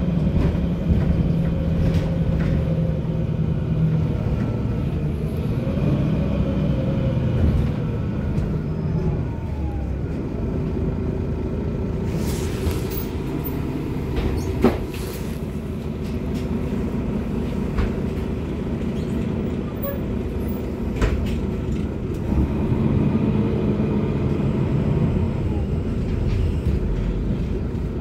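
Mercedes-Benz Citaro LE (O530LE) city bus heard from inside the passenger saloon while under way: a steady engine and drivetrain hum whose pitch rises and falls twice as the bus accelerates and eases off. There is a brief hiss about twelve seconds in and a sharp click shortly after.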